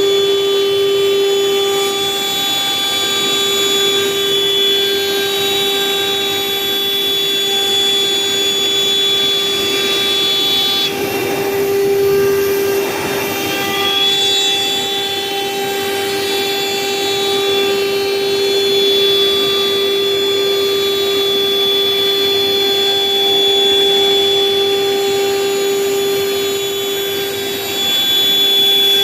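CNC router spindle running steadily with a high whine while the bit cuts letters from mirrored Dekota plastic sheet. About eleven seconds in the high whine drops away under a wavering rush of cutting noise and returns about three seconds later.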